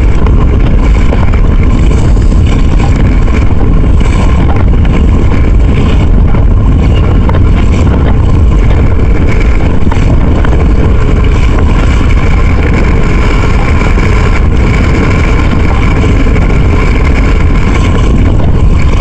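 Strong wind buffeting the microphone: a loud, steady low rumble with no let-up.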